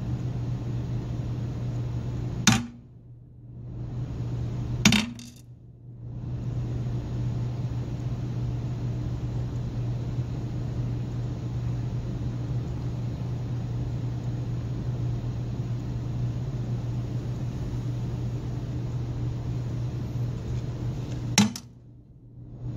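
Three sharp pops as the glass bulbs of fire sprinklers burst in the heated water, each one setting off a sprinkler: the first about two and a half seconds in, the second about five seconds in, and the third near the end. A steady low hum runs underneath.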